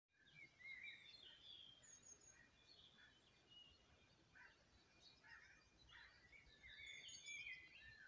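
Faint birdsong: several small birds singing and calling, short chirps and warbled phrases overlapping throughout.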